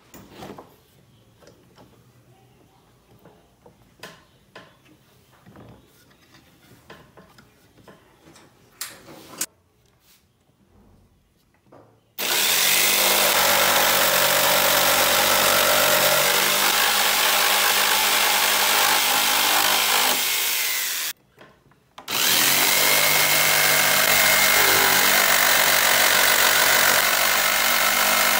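Makita corded jigsaw sawing through a wooden board. It starts about twelve seconds in and runs steadily, stops for about a second about two-thirds of the way through, then starts again; before it starts there are only faint scattered taps.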